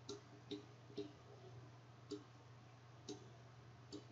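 Faint computer mouse clicks, about six at uneven spacing, over a low steady hum.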